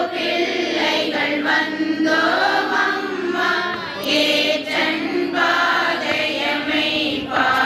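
Congregation singing a Tamil church hymn together, many voices in unison, mostly women's, in phrases a second or two long.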